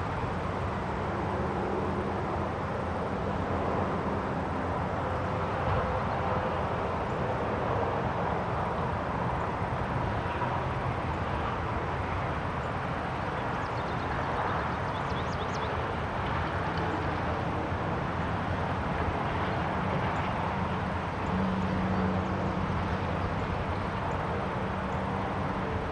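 Steady countryside ambience: an even rush of wind with a low rumble underneath, and a few faint bird chirps in the middle.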